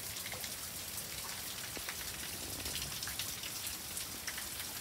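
Steady rain falling, with many irregular drops tapping on surfaces close by.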